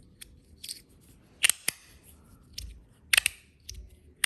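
Copper magnetic fidget slider being slid by hand, its plates snapping into place with sharp clicks, about half a dozen at uneven intervals.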